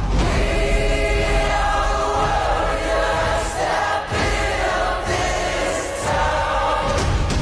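Choral music: a choir singing sustained notes, with a brief break about four seconds in.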